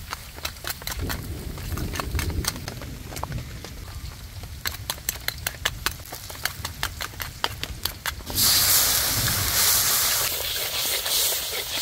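Food frying in an open pan: oil popping and crackling in irregular sharp clicks, then a loud hissing sizzle that starts suddenly about eight seconds in.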